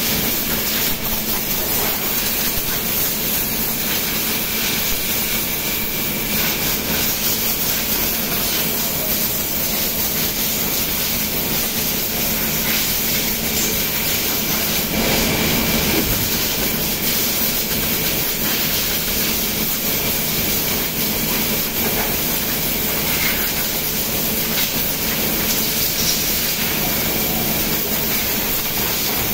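Circular knitting machines running: a steady, dense mechanical clatter and hiss with a constant low hum.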